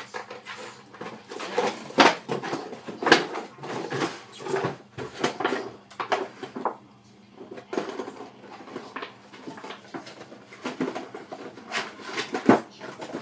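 Small dog chewing and knocking a plastic milk bottle about: irregular crackles, crunches and hollow plastic knocks, with a few sharper, louder knocks about two and three seconds in and again near the end.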